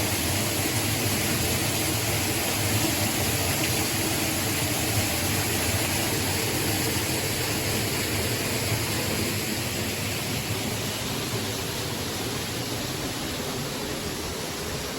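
Steady rush of a small mountain waterfall and its stream, gradually fading over the last several seconds.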